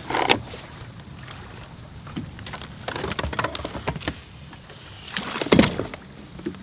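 Scattered knocks, clicks and rustling of someone moving about and handling fishing gear in a small boat, with one louder thump about five and a half seconds in.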